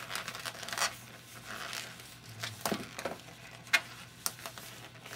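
Inflated latex 260 modelling balloons being handled as their nozzle ends are tied together: a few short rubbery rubs and scrapes of latex against latex and against gloved hands, the sharpest about three-quarters of the way through.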